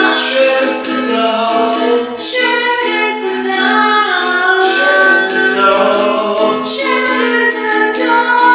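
A song with a female voice singing over a steady held low note.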